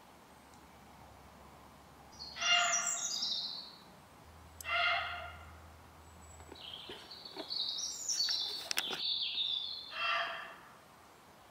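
Woodland birds: a songbird sings quick stepped whistled phrases, twice, and a harsher call with a strong low note comes three times, a couple of seconds apart.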